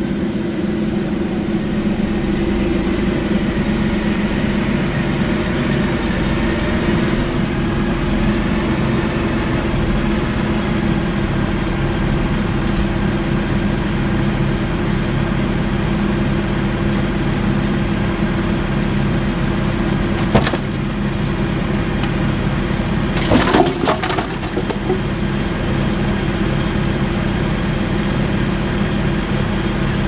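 Tractor engine running steadily while its front loader carries a bundle of split firewood. A sharp clatter of falling logs about 20 seconds in, then a longer clatter of logs tumbling down around 23 to 24 seconds in.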